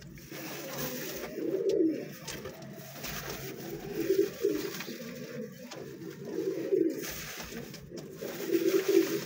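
Domestic pigeon cooing: four low coos, about two and a half seconds apart.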